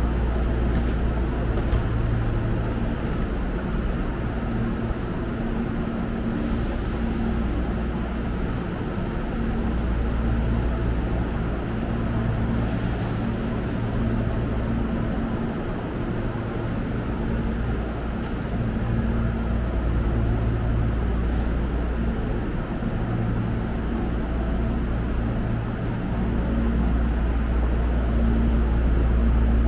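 Steady low hum of a stopped Hankyu electric commuter train standing at the platform with its doors open, its onboard equipment and air conditioning running. A few steady low tones in the hum swell and fade over the seconds.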